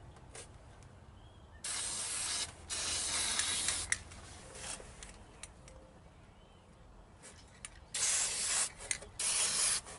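Aerosol can of battery protector and sealer spraying onto battery terminals: four hissing bursts of about a second each, two about two seconds in and two near the end.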